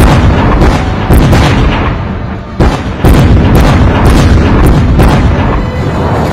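Artillery barrage striking a field: heavy explosions in quick succession, starting suddenly, with rumbling between blasts and fresh loud blasts about a second in and again around two and a half and three seconds in.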